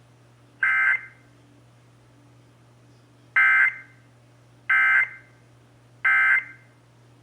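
Emergency Alert System digital data bursts, the short two-tone screeching squawks of the EAS code. There are four: one about half a second in, then three evenly spaced about 1.3 s apart, the pattern of the end-of-message code that closes a test.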